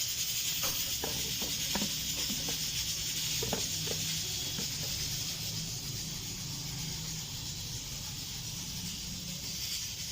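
Steady hiss of background noise with a low hum under it, and a scatter of faint light clicks or taps in the first half.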